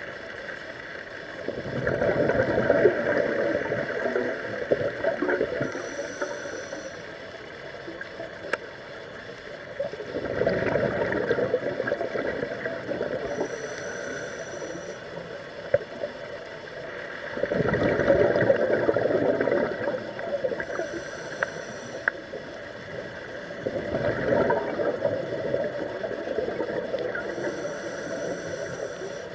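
Scuba diver breathing through a regulator underwater: four long gushes of exhaled bubbles, roughly every seven seconds, each followed by a short, high hiss as the next breath is drawn. Faint scattered clicks sound between breaths.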